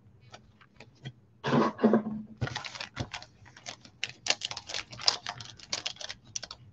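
Crinkling and tearing of packaging as a box of Panini Mosaic football trading cards and its packs are opened: a quick, irregular patter of crackles and clicks, sparse at first and busier from about a second and a half in.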